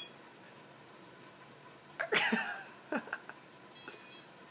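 Cartoon soundtrack from a television: about two seconds in a character lets out a short wordless vocal sound that falls steeply in pitch, then a second shorter one, and near the end a phone's brief electronic beep.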